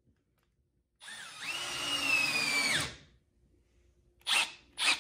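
Milwaukee M12 FUEL FPDX cordless drill's brushless motor running under load for about two seconds, driving a long screw into a wooden block. Its high whine comes up quickly, eases slightly lower, then cuts off suddenly. Near the end, two short sharp sounds come about half a second apart.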